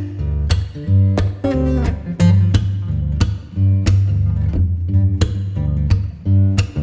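Background music: plucked and strummed guitar over a steady beat and a deep bass.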